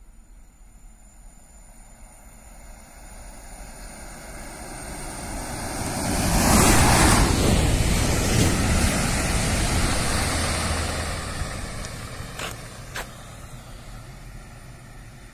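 An electric passenger train passes under the bridge. Its rushing noise swells to a peak about seven seconds in, then fades as it runs away. Two short sharp clicks come near the end.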